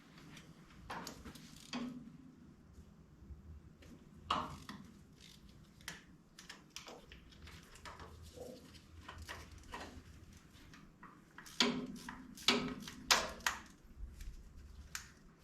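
Hand tools and metal parts clinking and knocking while the starter motor is unbolted from a Ford 545A backhoe's diesel engine: scattered irregular clicks, with a run of louder metal clanks near the end.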